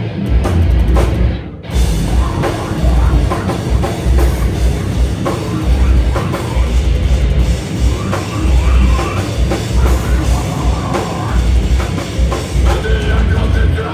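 Slam death metal band playing live and loud, pounding drums under a dense wall of distorted guitar and bass. The music drops out for a moment about a second and a half in.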